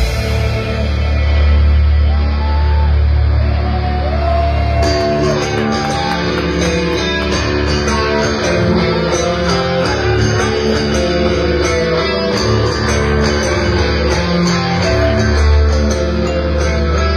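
Live rock band playing: electric guitar with sliding, held notes over heavy bass. Drum cymbals join in a steady beat about five seconds in.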